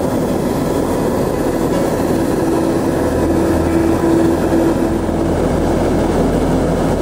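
Hot air balloon's propane burner firing in one long, loud, steady blast.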